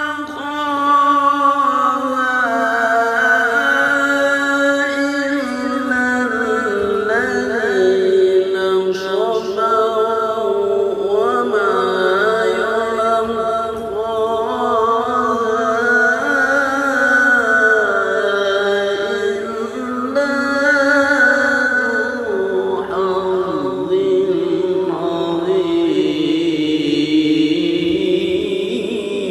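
A single voice chanting Quranic recitation in Arabic in a melodic, drawn-out style, holding long notes with ornamented turns that rise and fall.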